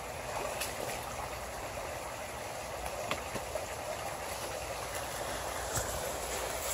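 Steady rush of water flowing in a shallow creek, with a low rumble underneath and a few faint splashes from feet wading through the water.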